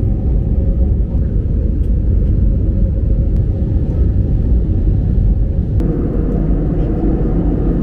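Steady low rumble of a passenger airliner's engines and airflow heard from inside the cabin, its tone shifting slightly about six seconds in.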